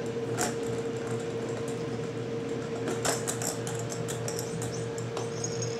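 Kittens moving about on a board and carpet, making scattered light clicks and scratches with a brief cluster about three seconds in, over a steady background hum.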